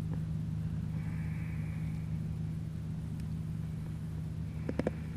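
A steady low motor hum with an even, unchanging pitch, joined by a few light clicks near the end.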